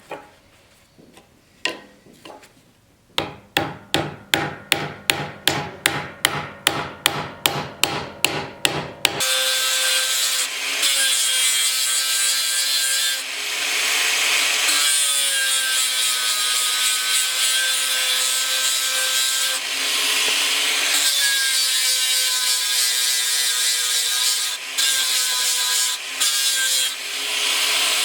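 A quick run of even, sharp tapping strikes, about two and a half a second, then an electric power tool working wood, running continuously with its pitch sagging for a moment a few times as it is loaded.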